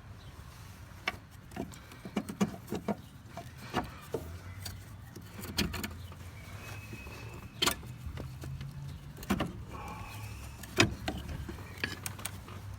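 Scattered metallic clinks and knocks from hand tools and loose engine-mount hardware being handled, over a low steady hum.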